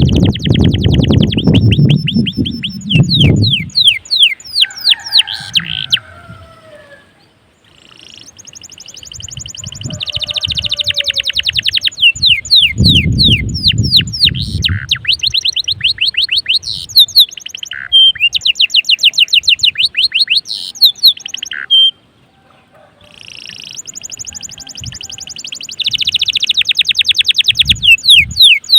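Domestic canary singing loudly in long rolling trills of fast, repeated notes, in phrases broken by two short pauses. A low rumble sits under the song at the start and again about halfway.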